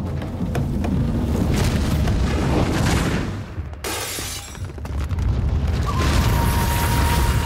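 Sound effects for a mine-cart ride film: a heavy low rumble of the cart on its track, with crashing booms. The sound drops away briefly about four seconds in, then returns with a steady high tone from about six seconds in.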